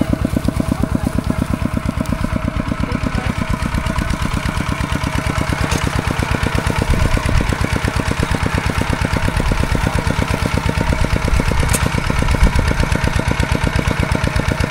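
Single-cylinder diesel engine of a two-wheel walking tractor running steadily, a rapid even chugging of firing strokes.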